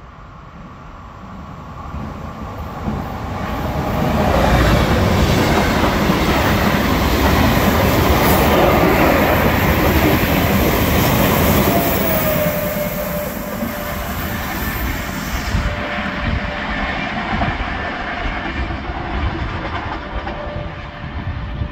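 Electric-hauled passenger train of Intercity coaches running through a station at speed: it grows louder as it approaches, passes loudly for about eight seconds with the noise of wheels on the rails, then fades. A steady tone lingers through the second half.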